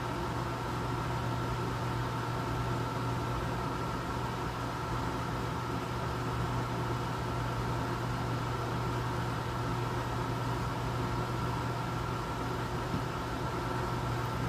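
Room air conditioner running: a steady hum and fan noise with a few constant tones.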